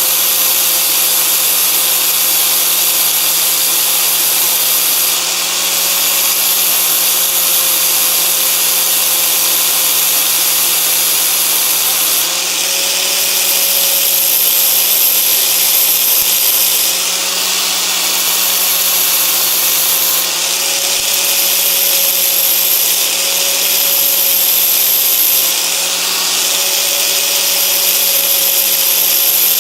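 Angle grinder with a flap disc grinding a chamfer on the end of a stainless steel bolt that spins in a locked-on power drill. Loud, steady motor whine and grinding hiss, the hiss shifting several times as the disc is pressed on and eased off.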